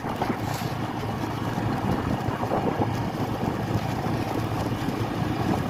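Scooter engine running steadily as it rides along, a low steady hum under rushing wind on the microphone.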